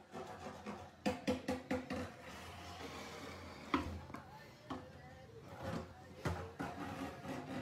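A plastic water bottle knocking and crackling against a wooden floor: a quick run of sharp clicks about a second in, then single knocks every second or so.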